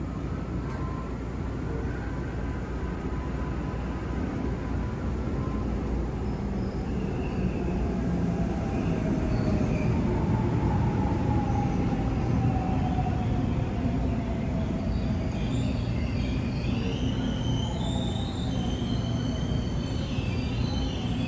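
Seoul Subway Line 3 electric train pulling into an underground station. Its rumble grows as it comes in, a motor whine falls in pitch as it brakes, and high squeals sound near the end as it comes to a stop.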